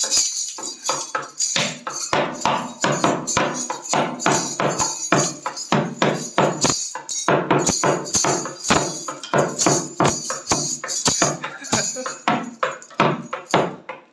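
Small dhol drum beaten by a child in a fast, uneven rhythm, a jatar (village-fair) beat, with many close strikes one after another.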